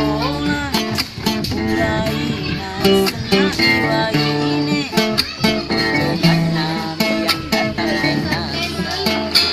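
Music: guitar-led song with plucked strings and a singing voice.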